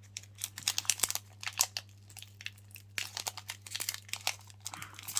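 Foil wrapper of a Pokémon card booster pack being crinkled and torn open: a quick, irregular crackling.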